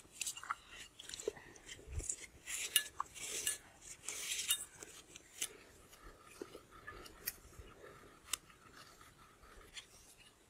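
Onion being peeled and tomatoes cut by hand, with quick, irregular crisp snaps and crunches. After about six seconds it turns quieter, with only scattered clicks.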